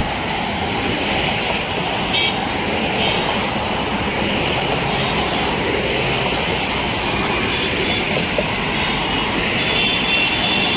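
Steady road traffic noise of a convoy of SUVs driving past: engines and tyres running on the road in one continuous rush.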